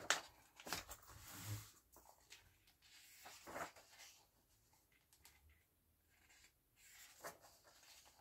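Pages of a paperback colouring book being turned by hand: faint paper rustles and slides, several short ones with quiet pauses between, the loudest right at the start.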